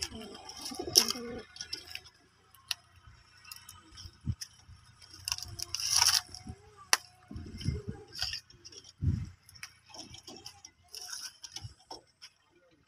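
Domestic pigeons cooing in a loft, a few low coos in the second half, with scattered light clicks and rustles.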